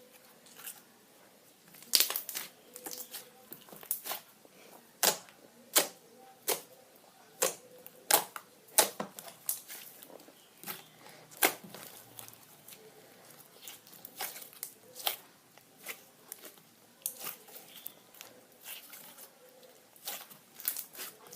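Thick slime being squeezed and pressed by hand, giving irregular sharp pops and crackles as trapped air bubbles burst, about one or two a second.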